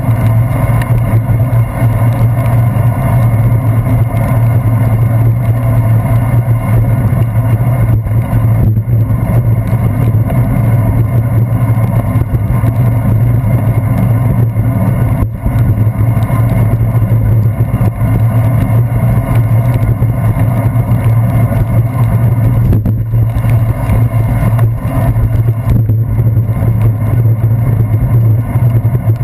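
Steady, loud low rumble of a bicycle rolling on wet pavement, picked up through a handlebar-mounted GoPro as road vibration and wind noise with a constant low hum.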